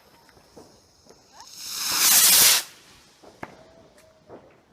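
A firework's hiss builds for about a second and then cuts off suddenly. Faint, scattered pops of fireworks sound around it.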